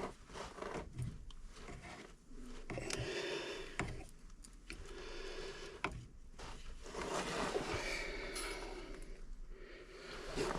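Close handling sounds of work on a plumbing pipe joint: irregular scraping and rubbing as thick, jelly-like sealant is worked into the joint, with a couple of sharp clicks.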